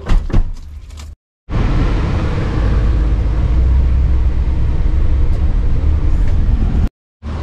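Steady low rumble and road noise of a moving vehicle, heard in a clip that starts and stops on abrupt cuts.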